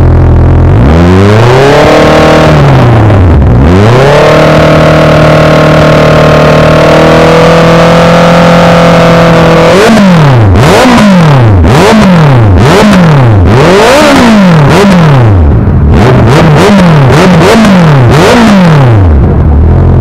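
Honda CB650 inline-four engine revved through an aftermarket exhaust: one rise and fall, then held at high revs for several seconds, then a run of about a dozen quick throttle blips.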